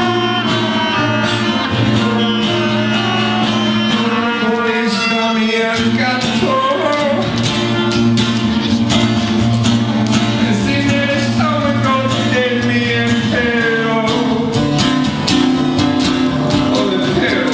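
Music: a band playing a song, with guitar, a held bass line, steady drum strokes and a gliding melodic lead line over the top.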